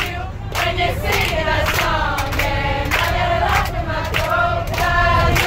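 Background music: a dramatic trailer-style track with choir-like voices over a steady low bass.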